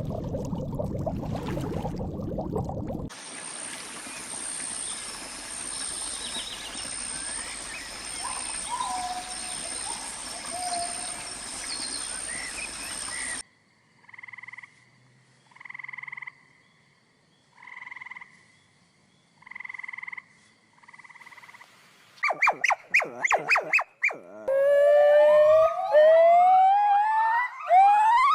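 A run of different animal calls, one after another: first a long steady high-pitched chorus, then evenly spaced calls about every two seconds, then a quick rattle and a flurry of rising whistling calls near the end.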